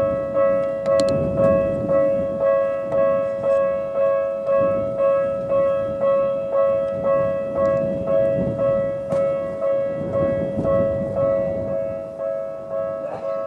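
Japanese railway level-crossing alarm with the electronic Tokyu-type bell sound, ringing a two-note chime about two and a half times a second, each strike fading quickly. The ringing eases slightly near the end.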